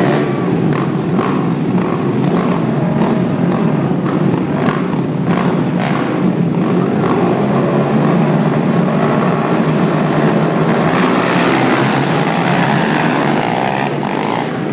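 A pack of racing ATV engines revving on the start line, the throttles surging up and down, then all going to full throttle together as the race starts, about eleven seconds in.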